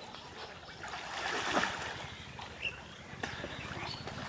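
Pond water sloshing and splashing around a person wading chest-deep, swelling about a second in.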